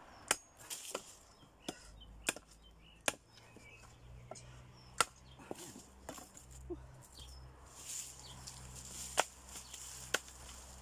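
Machete (bolo) chopping leafy tree branches into firewood on a wooden chopping block: sharp, separate chops at an uneven pace, about ten in all, with a longer pause in the middle.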